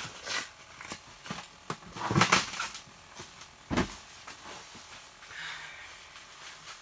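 Handling noises of a person moving about and handling gear inside a small ice-fishing shelter: scattered knocks and scuffs, a louder clatter about two seconds in and a single sharp knock just before four seconds, then quieter rustling.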